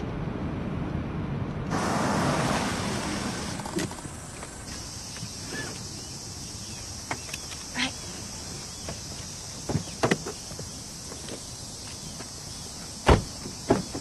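A low vehicle-like rumble that cuts off abruptly about two seconds in, giving way to a steady high-pitched insect chorus. Scattered soft clicks and knocks sound over it, with one sharp knock near the end.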